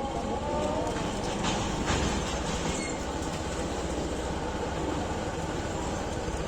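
Preet combine harvester running, a steady, dense mechanical rumble with a fast low clatter and no break.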